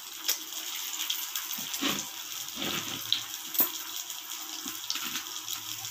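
Masala-coated fish pieces shallow-frying in hot oil: a steady sizzle with scattered crackles and pops.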